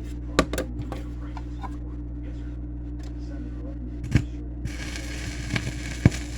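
Dub plate record on a turntable giving off surface noise: scattered sharp clicks and pops over a steady electrical hum, with a steady hiss coming in about two-thirds of the way through.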